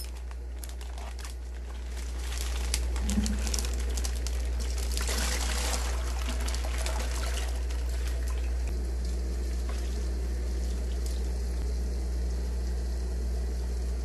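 Water poured and trickling from a plastic fish-shipping bag into a plastic bucket, heaviest about five to six seconds in, over a steady low hum. From about nine seconds in only the hum remains.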